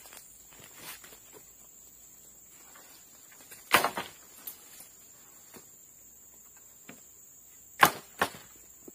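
Two long wooden poles dropped one after the other onto the forest floor, each landing with a sharp wooden knock and a smaller bounce, about four seconds apart. Under them a steady high insect buzz and light footsteps on leaf litter.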